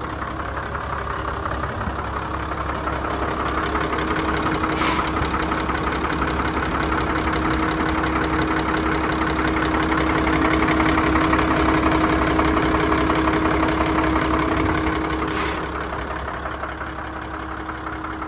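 International DuraStar 4300 diesel engine idling steadily with a rapid diesel clatter. It gets louder through the middle and a little quieter near the end.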